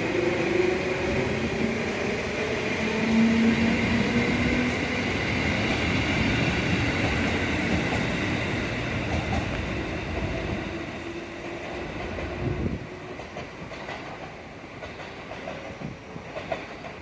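A train running on the rails close by, with heavy wheel-and-rail rumble and a few steady tones. The noise drops away sharply about three-quarters of the way through, leaving a quieter tail.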